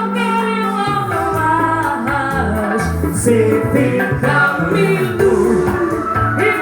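Live music: a voice singing long, wavering notes of a Portuguese love song over steady instrumental accompaniment.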